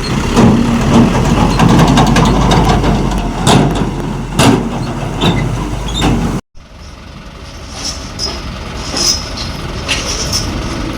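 Heavy truck engine running, with scattered clicks and knocks over it. The sound breaks off abruptly about six and a half seconds in and picks up again quieter.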